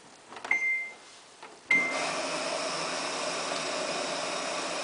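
Samsung WF8804RPA washing machine beeps twice at button presses in its service test mode. With the second beep, a steady rush of water starts as the inlet valve opens for the main wash and softener fill.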